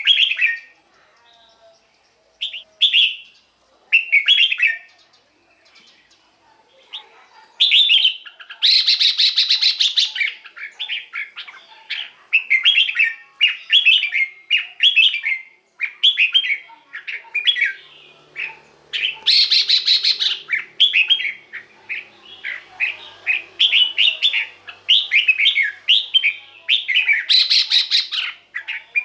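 Red-whiskered bulbul singing short, bubbling whistled phrases. They are sparse at first and come in a near-continuous run after about eight seconds. Three times the song is broken by a louder, harsh, noisy burst.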